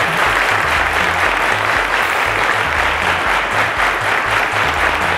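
Studio audience applauding, a dense, steady clapping, over show music with a low, pulsing bass beat.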